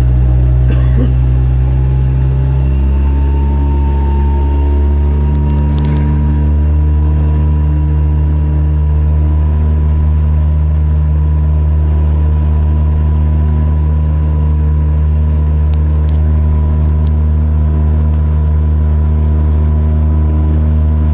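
An engine running steadily at a constant speed, its pitch rising slightly over the first couple of seconds and then holding. A few faint clicks sound over it.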